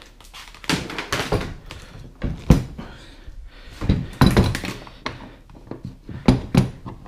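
Clunks and knocks of a kayak seat's tubular frame being set down and fitted onto the plastic hull of a Native Watercraft Slayer Propel 10 fishing kayak: a string of separate thunks, the loudest about two and a half seconds in.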